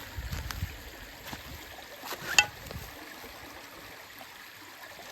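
Shallow creek water trickling and splashing, with a low rumble through the first three seconds and a single sharp knock about two and a half seconds in, then only the steady trickle.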